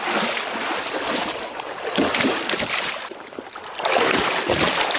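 Splashing and sloshing of shallow muddy pond water as fish are grabbed by hand, with lots of short sharp splashes; it eases a little after three seconds in, then picks up again.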